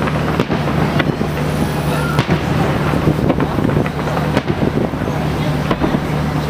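Fireworks display: shells bursting in a series of sharp bangs and crackles at irregular intervals, with crowd voices underneath.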